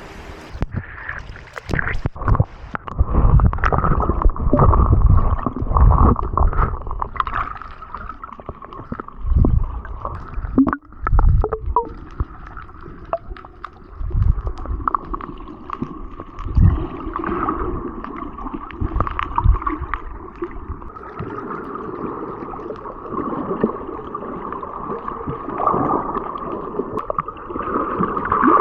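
Water sloshing and gurgling around a waterproof camera in the sea, muffled, with uneven heavy surges and thumps in the first two-thirds that then settle into a steadier wash.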